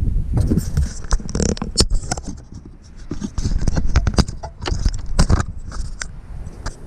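Close handling noise: a quick, irregular run of clicks, taps and scrapes, over a low wind rumble on the microphone.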